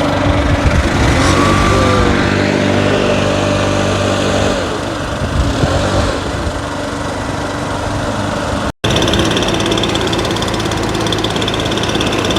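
Small gasoline engines of lawn-care equipment running steadily. About nine seconds in there is an abrupt break, then a higher, whining engine note.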